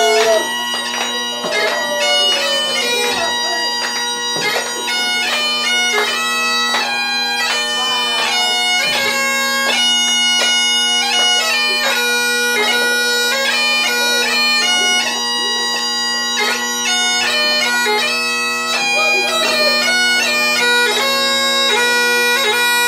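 Great Highland bagpipe playing a tune, its melody notes stepping over the steady drones.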